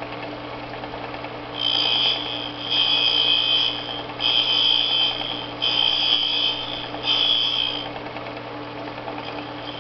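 A surface grinder running with a steady hum while an angle dresser's point is swept across the edge of the spinning abrasive wheel, dressing an angle onto it. The dresser makes a high-pitched scraping squeal five times, each pass lasting about a second.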